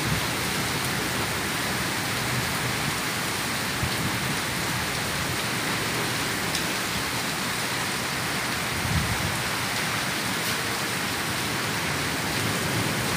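Heavy rain pouring steadily onto water-covered pavement, a dense, even rush of rain with no let-up.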